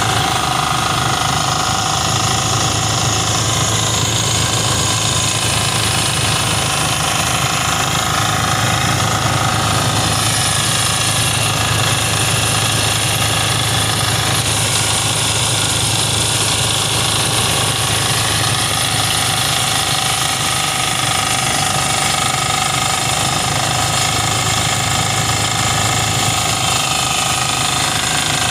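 Portable rice thresher driven by a small red single-cylinder engine, running steadily at full speed while rice stalks are fed into its drum and straw is thrown out.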